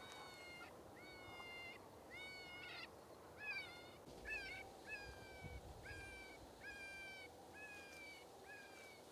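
Electronic predator call playing a repeated animal distress cry: short, high cries, each with a quick upward slide and then a held tone, about one every three-quarters of a second.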